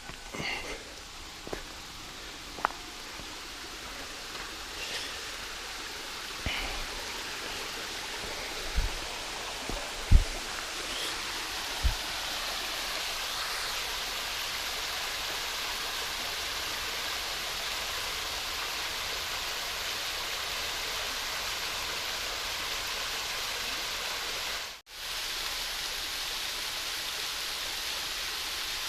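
Steady rush of a cascade waterfall, swelling over the first dozen seconds and then holding even. A few sharp knocks sound in the first twelve seconds, and the sound drops out for an instant about 25 seconds in.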